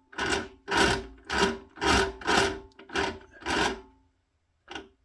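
Seven rhythmic rubbing strokes, about two a second, each with a faint squeak, followed by one short rub near the end.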